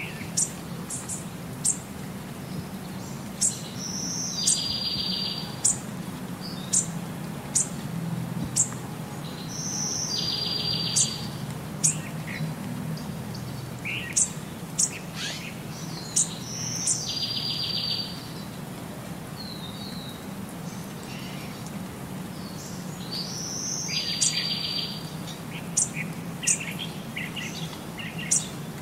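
Young little owl giving a raspy, hissing call about a second long four times, roughly every six or seven seconds, among frequent sharp high chirps. A low steady hum runs underneath.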